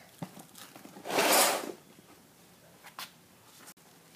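Steel tape measure being pulled out of its case: one short rasp of the blade sliding out about a second in, with a few small clicks of handling around it.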